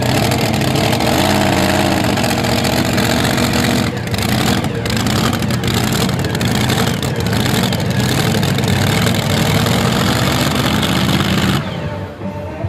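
Modified-class pulling tractor's supercharged V8 engine at full throttle during a pull, loud and steady, its pitch climbing over the first couple of seconds. Near the end the sound drops off sharply as the engine is backed off.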